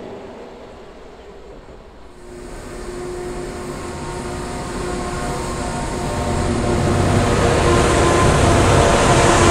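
Diesel-electric locomotives of a Pacific National freight train approaching. From about two seconds in, their engines grow steadily louder as a deep rumble with a steady hum of several tones.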